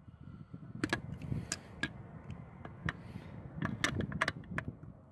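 Channel-lock pliers clicking and scraping against the bolts of a steel photo-eye bracket as they are checked for tightness: a string of sharp, separate metallic clicks over a low rustle.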